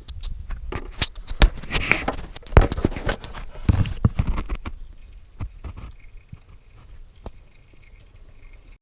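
A quick run of clicks and knocks, dense at first and thinning out after about five seconds, then a faint steady high tone.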